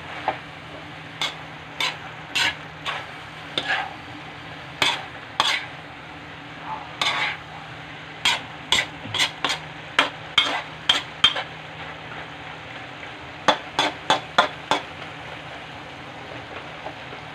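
Stir-frying cabbage, green beans, carrots and meat in a wok: a spatula scrapes and tosses against the pan in irregular runs of quick strokes over a steady sizzle. The strokes stop near the end, leaving only the sizzle.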